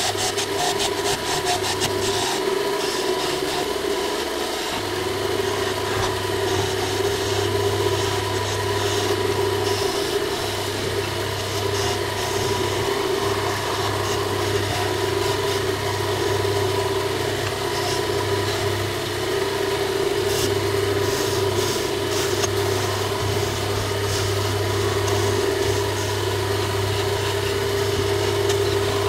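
Wood lathe motor running steadily with a low hum, while a skew chisel cuts into the spinning wooden spindle now and then, the scraping of the cut clearest near the start and about two-thirds of the way in.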